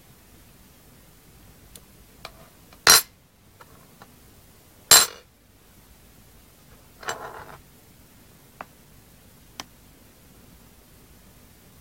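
A gallium spoon clinking sharply twice, about two seconds apart, against a glass mug or a wooden tabletop, then a softer rattle a couple of seconds later as it is set down and handled, and a few faint clicks.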